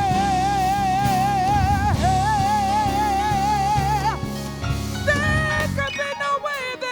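Live soul band with a female singer holding two long, high notes with wide vibrato over the band, then moving into shorter, higher phrases as the accompaniment thins near the end.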